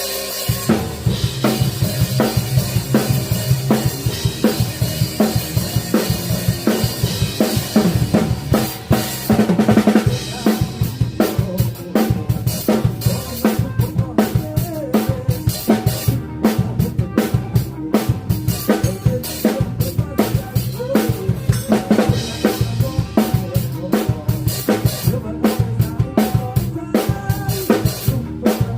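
Rock drum kit played at a sound check: bass drum, snare and cymbals keeping a dense, steady beat.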